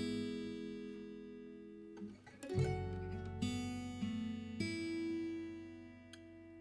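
Background music: acoustic guitar strumming chords, with a chord change about halfway through and another a couple of seconds later.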